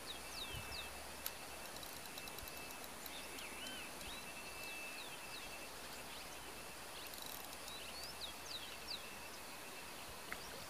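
Birds calling in short, sweeping whistled notes scattered throughout, over a steady high insect drone; a single faint click about a second in.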